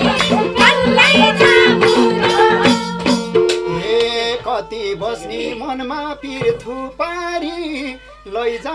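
Nepali dohori folk music: madal hand drums beat a steady rhythm over harmonium chords for about the first three seconds. Then the drums stop, and a softer melody carries on without them.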